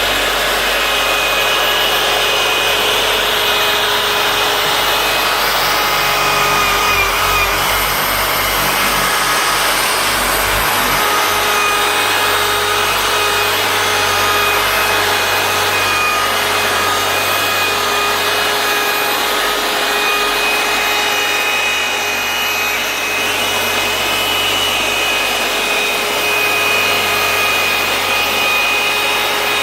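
A power tool running steadily with a constant motor whine and a rubbing, grinding noise.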